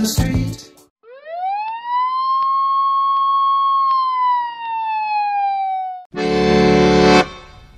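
A single siren wail rises quickly, holds and then slowly falls over about five seconds, after the end of a music track. A loud burst of accordion music comes in near the end.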